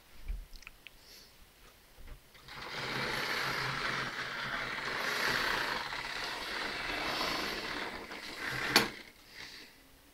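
Model railway locomotive running along the track: a steady sound of its small electric motor and wheels, starting about two and a half seconds in and stopping with a sharp click near the end.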